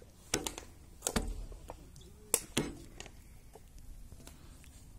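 About four sharp knocks and clinks on a perforated metal tabletop, the loudest a little past two seconds in, each ringing briefly.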